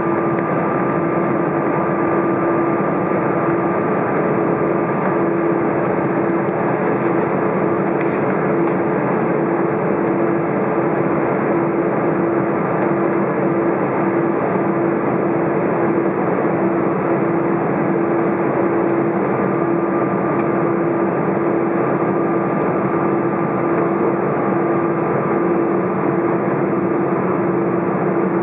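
Airbus A320 cabin noise while taxiing: a steady hum and rush from the engines at idle and the air system, heard from a window seat over the wing. It carries a thin steady whine and a low tone that pulses in even beats.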